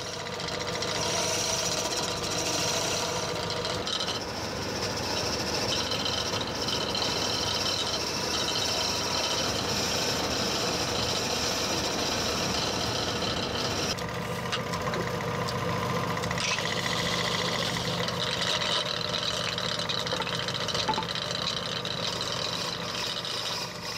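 Woodturning lathe running while a hand-held cutting tool shaves the spinning enju wood, a steady machine hum under a hissing cut that changes its pitch every few seconds as the tool moves.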